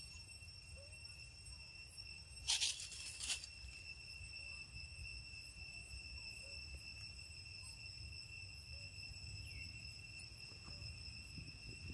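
Forest insects trilling in a steady, unbroken high-pitched drone. About two and a half seconds in, a loud rustling, tearing noise lasts just under a second.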